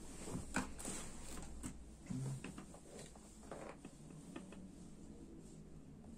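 Faint scattered knocks, clicks and rustles of a person moving about to fetch a toy ball that rolled under a sofa.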